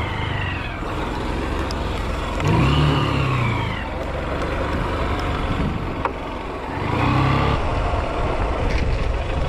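Honda Shine 125's single-cylinder engine pulling the bike along, its revs rising and falling about two and a half seconds in and again about seven seconds in, over a steady rush of noise.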